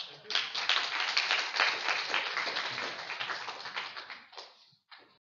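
Audience applauding, a dense patter of many hands that dies away about four seconds in.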